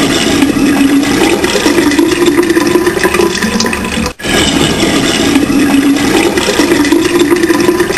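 Loud rushing water with a low hum under it, breaking off about four seconds in and then starting again.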